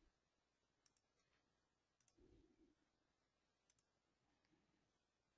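Near silence, with a few faint, short computer mouse clicks.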